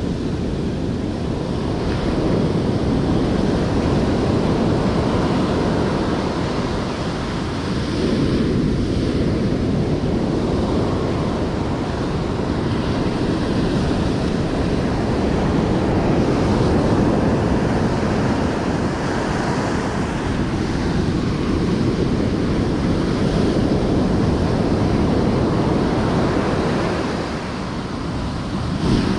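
Ocean surf breaking and washing up the sand, swelling and easing every several seconds, with wind rumbling on the microphone.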